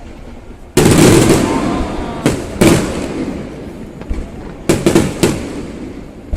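Aerial fireworks shells bursting. A loud bang comes just under a second in, then several more in quick succession, some in close pairs, each trailing off with a long echo.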